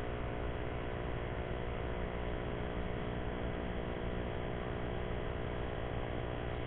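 Steady electrical hum with hiss, unchanging throughout, with many steady tones stacked over one another.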